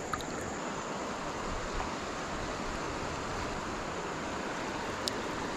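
River current flowing steadily past the kayak, heard as an even hiss, with a single small click about five seconds in.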